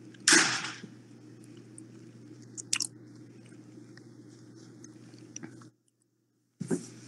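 Chewing and crunching of food close to the microphone, with a loud rush of noise about half a second long just after the start and a few faint clicks. A steady low electrical hum runs underneath and cuts off about six seconds in.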